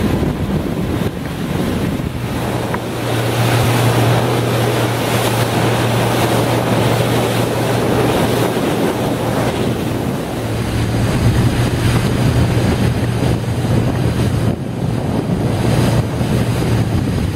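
Outboard motor running steadily on a small skiff under way at sea, a low hum that weakens briefly about ten seconds in, under heavy wind noise on the microphone and the rush of water past the hull.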